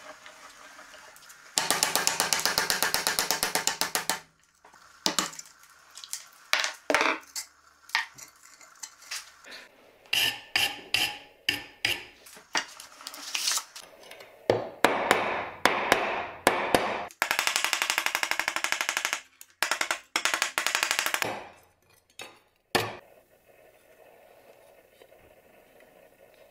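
Hammer blows on the steel of a rusty nakiri knife clamped in a steel bench vise, working the old handle off its rusted tang: several runs of rapid taps a second or two long, with single knocks between them, stopping a few seconds before the end.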